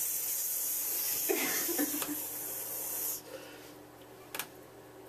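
A steady, high hiss that cuts off suddenly about three seconds in, followed by a quieter stretch with a brief click near the end.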